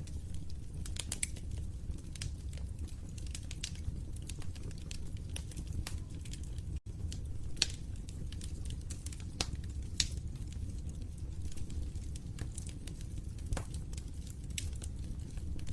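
Fireplace fire crackling: irregular sharp pops and snaps over a steady low rumble of flames. There is a split-second dropout in the sound about seven seconds in.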